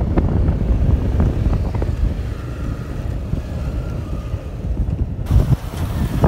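Motorcycle on the move: a steady low rumble of wind buffeting the microphone mixed with the engine running.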